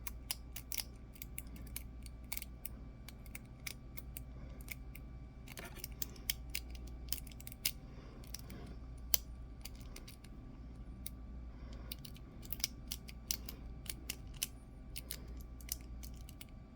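Irregular light metallic clicks and ticks of a lock pick working the pins of a cheap brass padlock under tension, over a steady low hum.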